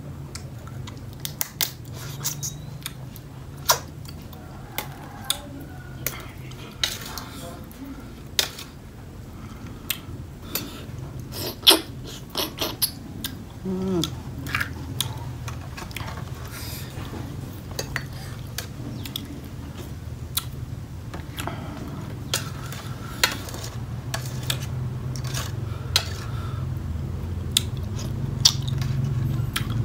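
Crab shells being cracked and picked apart and a spoon clinking against a metal bowl during eating: scattered sharp clicks and clinks, with some chewing, over a steady low hum that grows louder near the end.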